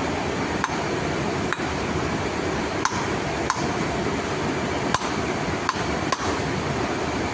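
Hammer striking metal in light, irregular taps, about seven in all, each with a short metallic ring, as a bearing is driven on a belt tension pulley. A steady noise runs underneath.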